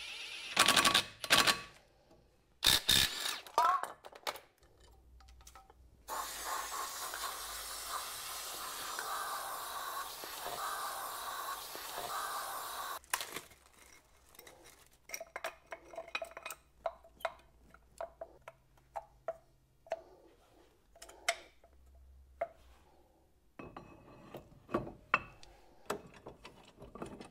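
Cordless drill with a socket running in short bursts on the wheel hub of a brake disc, then a steady hiss lasting about seven seconds, then many small metallic clinks and taps of tools and brake parts being fitted.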